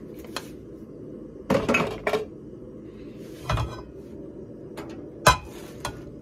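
A frying pan being handled and tilted on a gas hob to spread the oil, knocking and clattering against the stove grate a few times, with one sharp clank about five seconds in. A steady low hum runs underneath.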